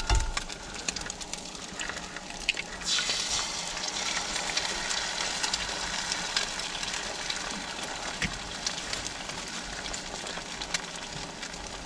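Diced Spam and eggs frying in a hot skillet on a gas camp stove. The sizzle jumps up about three seconds in as an egg goes into the pan, and there is a single sharp click about eight seconds in.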